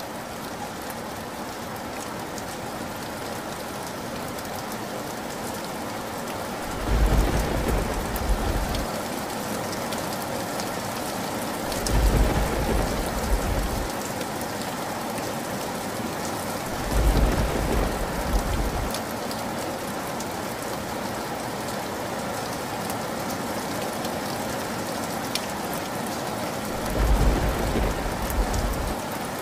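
Steady heavy rain, with four deep rumbles of thunder, each lasting about two seconds: three spaced about five seconds apart starting about a quarter of the way in, and a last one near the end.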